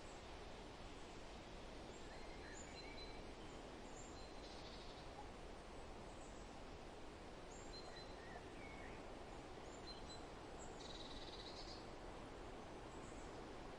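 Faint steady wind rustling through a forest, with scattered short bird chirps and two brief buzzy calls, one about four seconds in and a louder one about eleven seconds in.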